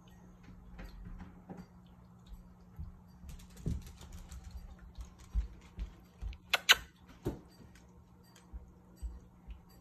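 Sleeping Jack Russell puppies stirring and waking in a fleece dog bed: scattered small clicks, taps and rustles. A brief sharp louder sound comes about six and a half seconds in, over a steady low hum.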